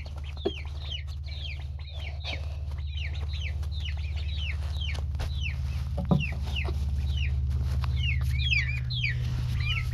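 Baby chicks and ducklings peeping without pause: a steady stream of short, high, falling peeps, a couple each second, over a steady low hum.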